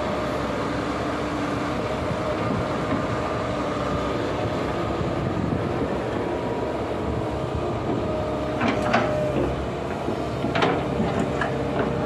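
Backhoe's diesel engine running steadily, with a few sharp metallic clanks from about two-thirds of the way in.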